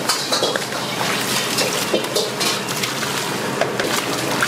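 Restaurant kitchen noise: a steady rushing background with frequent knocks and clatter of utensils.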